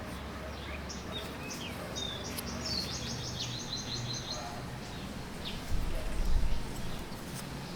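Small birds chirping, with a fast, high trill about three seconds in, over steady low background noise. A brief low rumble about six seconds in is the loudest moment.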